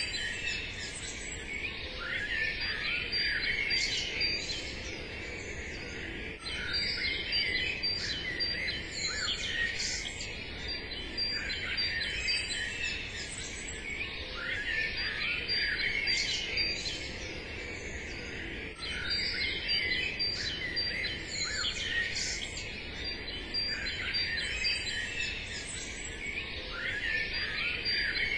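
Many songbirds chirping and singing at once, a dense chorus of short overlapping calls that swells and eases every few seconds.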